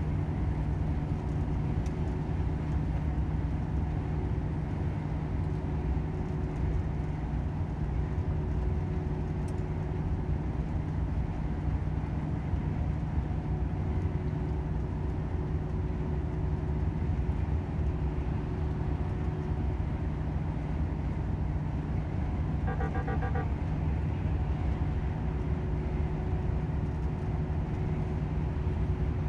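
Volvo FH 500 truck cruising on the motorway: the steady drone of its diesel engine and road noise. About 23 seconds in comes a brief burst of rapid beeps.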